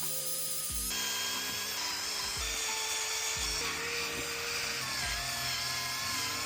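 Electric sander running steadily with a high, slightly wavering whine, over background music.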